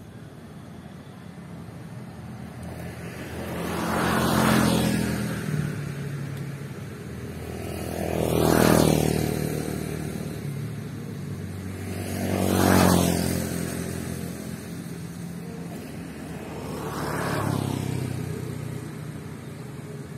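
Four vehicles pass one after another, each swelling up and fading away over a few seconds. Underneath runs the steady low engine hum of a rice combine harvester working in the field.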